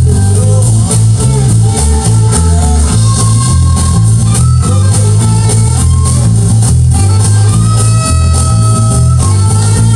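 Electric bass guitar playing a steady, moving bass line over a rock band track with drums and electric guitar lines.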